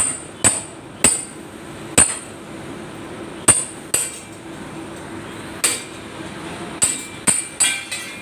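Hammer blows on the metal mudguard panel at a bus's front wheel arch, loosening the mudguard for removal. About ten sharp, ringing metallic strikes come at uneven intervals and fall quicker together near the end, over a faint steady hum.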